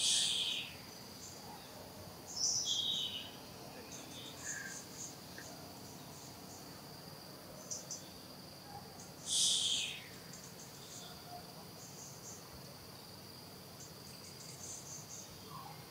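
Insects droning steadily on one high note, with short high chirping calls scattered through; two louder chirping bursts, one at the very start and one about nine and a half seconds in.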